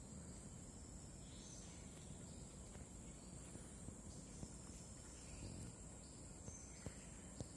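Faint outdoor ambience: a steady high insect drone, like crickets, with a few faint chirps and two small clicks near the end.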